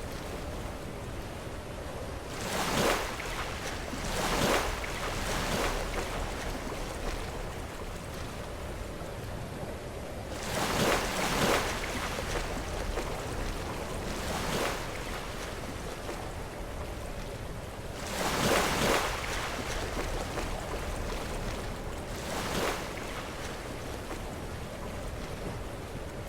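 Sea waves crashing against rocks: a steady wash of surf, broken by louder crashes every few seconds.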